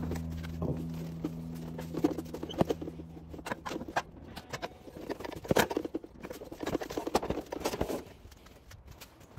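Quick clicks, knocks and rustles of hands handling scooter parts and tools, sped up. A low steady hum fades out over the first few seconds.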